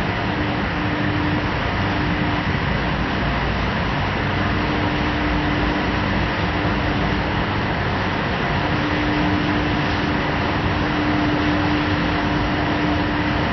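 Paper slitting and rewinding machines running: a steady, even machine noise with a hum that fades in and out.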